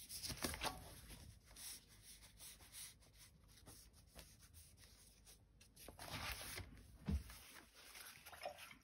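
Faint paper rustling and light knocks as a spiral-bound sketchbook and a crumpled paper towel are handled on a tabletop, with a slightly louder rustle and a soft thump a few seconds before the end.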